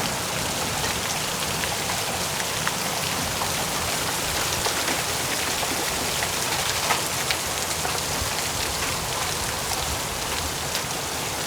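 Rain and a few pieces of small hail falling on a metal roof, heard from inside the building: a steady hiss with scattered sharp ticks from the hail.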